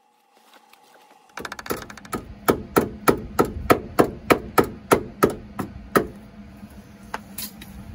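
Hammer blows on sheet steel, about a dozen strikes at roughly three a second, each ringing briefly, starting about a second and a half in and stopping around six seconds.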